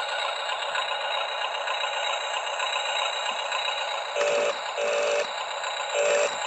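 Small electric gear motors of a radio-controlled toy excavator running, with a steady plastic rattle, and three short electronic beeps from about four seconds in.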